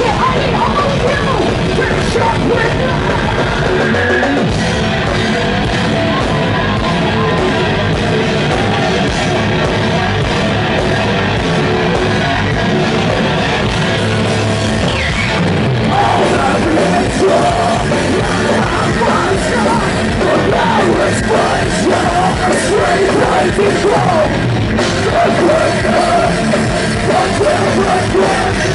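Live heavy metal band playing loud with distorted electric guitars and a drum kit, and a female vocalist yelling and singing over it, the vocals stronger from about halfway through.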